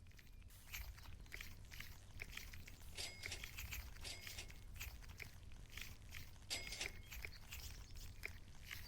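Squishy foam toy being squeezed and handled close to the microphone, with irregular faint crackling and crunching.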